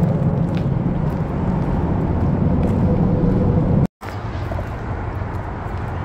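Steady rumble of road traffic from Interstate 40, heavy in the low end. The sound cuts out completely for a moment just before four seconds in, then the rumble carries on.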